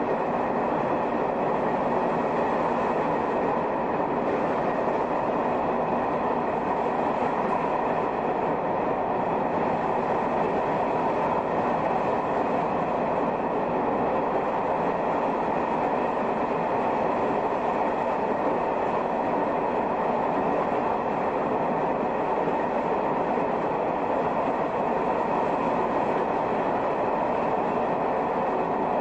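Shin-Keisei 200-series electric train with nose-suspended (tsurikake) traction motors running at a steady speed, heard from the leading car: a continuous drone of motors, gears and wheels on rail, with faint steady whine tones that neither rise nor fall.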